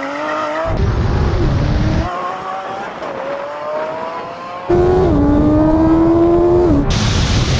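A Suzuki Hayabusa's inline-four and a Lamborghini supercar's engine accelerate hard in a drag race, in a few short cuts. The engines rev up through the gears, the pitch climbing and dropping back at each shift. From about two-thirds of the way in comes a louder, steadier high engine note from on board the motorcycle, with one drop at a shift.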